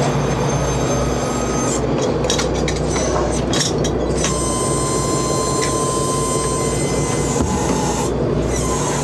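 Steady drone of a fishing vessel's diesel engines and deck machinery, with a few sharp knocks about two to four seconds in. A steady high whine comes in at about four seconds and stops at about seven.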